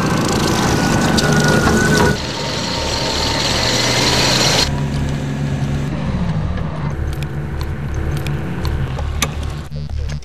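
Tracked military vehicle engine running with the clatter of its tracks. The sound changes abruptly about four and a half seconds in, to a quieter, steadier engine sound with scattered clanks.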